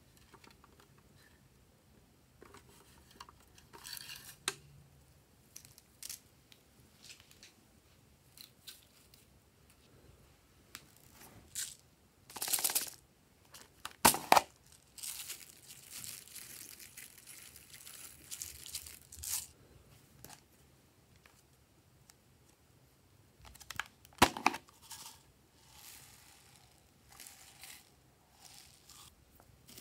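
Plastic toy containers being handled and foam beads and sprinkles being poured out over a tray of slime: scattered small clicks, taps and rustles, with a few seconds of soft continuous rustle after the middle. Two louder sharp plastic clicks stand out, one near the middle and one later on.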